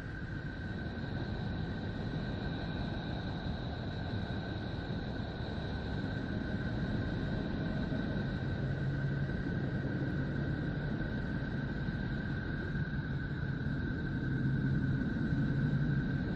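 Sonification of Neptune's space-probe data, electromagnetic wave data turned into audible sound: a steady low rushing noise with two thin high tones held throughout, and a low hum joining about eight seconds in.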